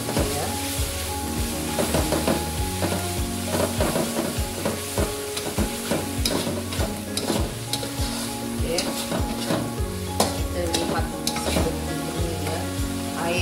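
Metal spatula scraping and tapping against a metal wok while fermented shrimp (cencaluk) and egg sizzle as they are stir-fried, the clicks of the spatula coming several times a second over the sizzle, with a steady hum underneath.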